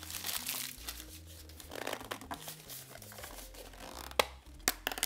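Clear plastic shrink-wrap being peeled and crinkled off a small plastic toy container can. Near the end there are two sharp clicks as the can's snap-on lid is pried at.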